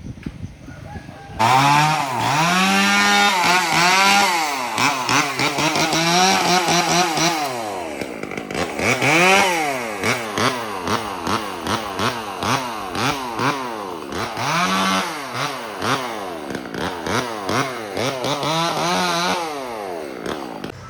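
Chainsaw starting abruptly about a second in and revving again and again, its pitch sweeping up and down in repeated arches that come quicker in the second half.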